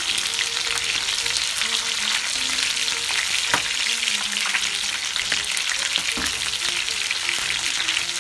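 Flour-and-egg-coated chicken drumsticks sizzling and crackling steadily in hot oil in a frying pan. Twice a sharp click as tongs knock against the pan while turning the pieces.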